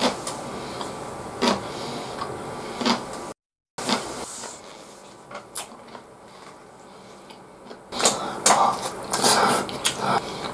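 Eating sounds: chopsticks clicking against a plastic takeout bowl and a man shovelling beef bowl (gyudon) into his mouth and chewing, with a dense burst of eating noise about eight to ten seconds in. The sound drops out briefly about three seconds in.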